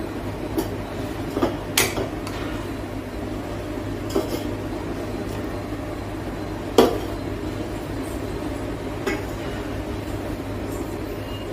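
Metal ladle knocking and clinking against a stainless steel pot and serving bowl as curry is scooped out: scattered sharp clinks, the loudest about seven seconds in, over a steady low hum.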